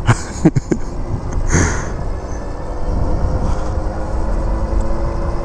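Indian eFTR electric bike's motor whining with a steady tone as it rides along, under wind rushing over the microphone and tyre noise; a brief gust of wind about one and a half seconds in.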